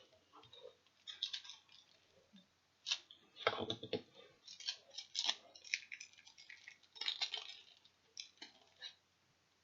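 Crinkling and rustling of a plastic wrapper, with clicks, as a collector's patch is unwrapped from its packaging. The sounds come in irregular bursts, loudest a few seconds in.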